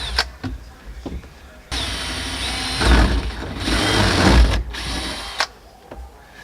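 A power drill running in a long burst and then a short one, with a few clicks before it, as the fasteners of a boat's rear rail are being removed.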